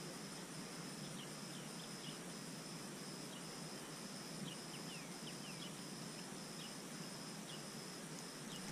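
Steady outdoor ambience: a continuous high insect trill, with short faint bird chirps scattered through it.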